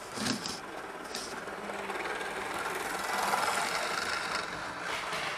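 Model train running on the layout's track: a steady whirring of its small electric motor and wheels on the rails. It grows louder toward the middle and then eases off.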